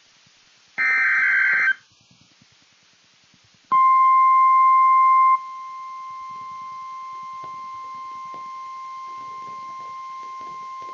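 Emergency Alert System SAME header data burst, a harsh electronic screech about a second long, then about two seconds of quiet, then the NOAA Weather Radio 1050 Hz warning alarm tone: a steady high beep, loud for about a second and a half, then continuing much softer.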